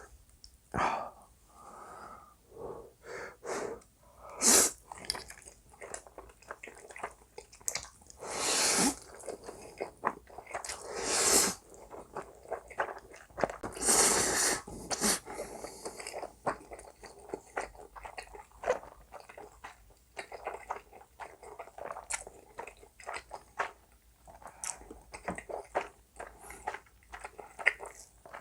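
Close-miked eating of spicy black bean instant noodles: several loud hissing slurps of noodles, the longest about a second, within the first half. Between and after them come steady wet chewing and small mouth clicks.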